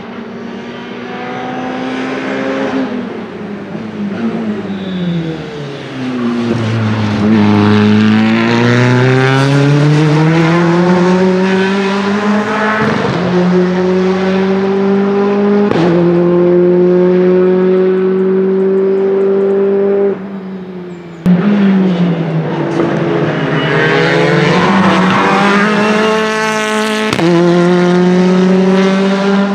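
Alfa Romeo Giulietta Veloce TCR race cars' turbocharged 1742 cc inline-four engines running hard past trackside: the engine note falls as a car brakes and downshifts, then climbs through the gears in steps, with sharp cracks at some gear changes. The sound cuts abruptly about two-thirds of the way through and picks up on another pass.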